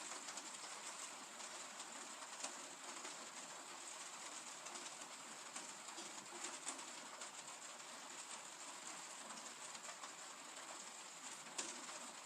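Steady rain: an even hiss with many separate drops ticking on a hard surface, a few louder drips standing out now and then.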